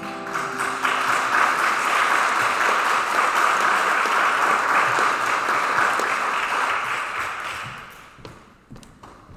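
Congregation applauding, starting suddenly over the last guitar chord as it rings out, then fading away after about seven seconds. A few footsteps and knocks on the wooden stage follow near the end.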